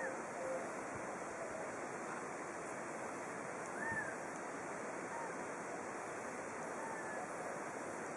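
Steady rushing wind noise on the microphone, with a few faint short chirps at the start and about four seconds in.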